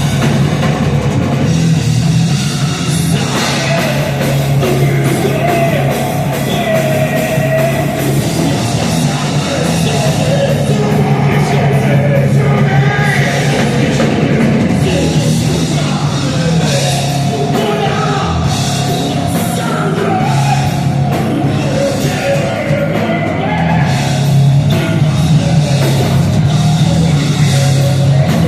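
Rock band playing live at high volume in a heavy style: a thick, steady low end under a drum kit, with a singing voice.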